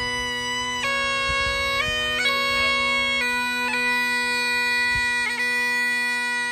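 Great Highland bagpipes played solo: a slow tune of long held notes, decorated with quick grace notes, over the steady, unbroken drone.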